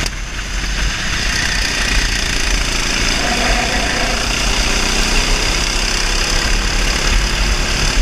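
390cc kart's single-cylinder four-stroke engine running steadily at racing speed, heard from the driver's seat of the kart.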